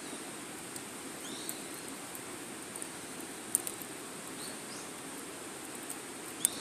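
Wood fire burning in a small fire pit: a steady low rush of flame with scattered sharp crackles and pops, the loudest about halfway through.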